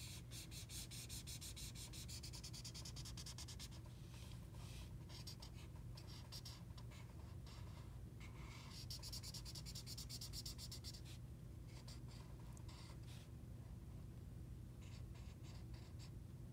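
Marker tip rubbing back and forth on paper in fast, short strokes while colouring in, coming in quick runs with brief pauses, over a steady low hum.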